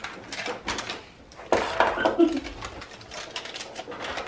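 Packets and small items rustling and clicking as they are handled and packed into a bag, with a louder clatter about a second and a half in.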